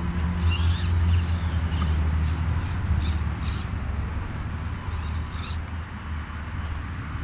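Axial SCX24 Jeep Gladiator 1/24-scale crawler's tiny motor and gears whining in short rising and falling bursts as it is throttled, over a steady low hum.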